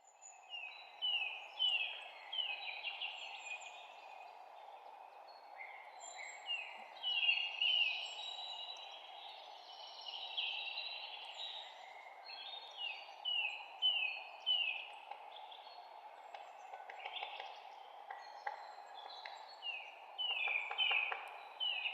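Birds chirping in runs of short, quick, downward-sliding chirps, some louder and some fainter, over a steady background noise.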